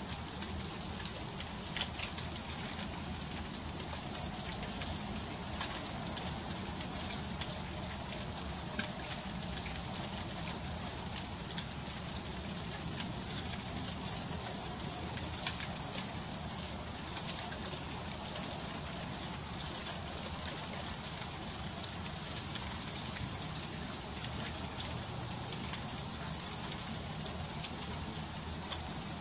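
Freezing rain falling: a steady high hiss with many small, scattered ticks of drops striking hard surfaces.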